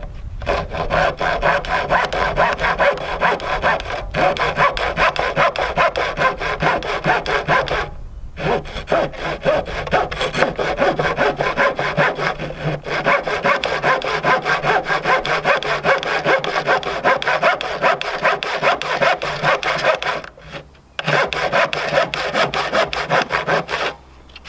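Hand saw cutting across a Douglas fir 2x12 board in a steady run of back-and-forth strokes, pausing briefly twice. The saw is establishing its kerf at a 45-degree angle down the board's edge with light strokes, letting the saw do the work.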